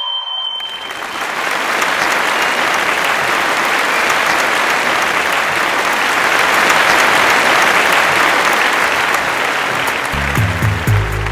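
A held, high whistled note ends just as an audience breaks into applause, which keeps up steadily for about ten seconds before music comes in near the end.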